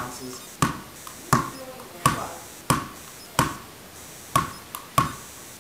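A pink Spalding high-bounce ball, a hollow rubber Spaldeen, bounced over and over by hand on a tile floor. Each bounce is a sharp smack with a short ringing tail, about one every 0.7 s, eight or so in all, with one longer gap partway through.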